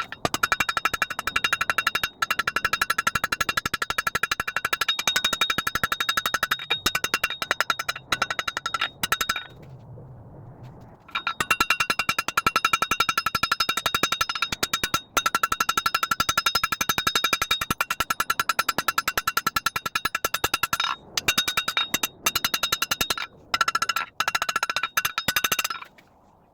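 Hammer blows on an anvil forging a square steel bar, sped up so the strikes come many times a second with a steady metallic ring. They pause for about two seconds near the middle and stop shortly before the end.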